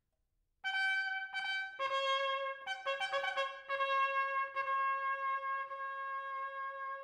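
Unaccompanied solo trumpet playing a fanfare-style phrase: after a brief rest, a quick run of separate notes jumping between pitches, settling about four seconds in on a long held lower note.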